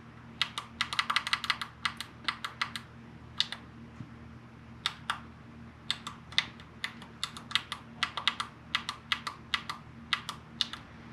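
Plastic push-buttons on a digital dash's keypad clicking as they are pressed, in irregular quick runs of several presses with short pauses between, while the dash's menus are stepped through.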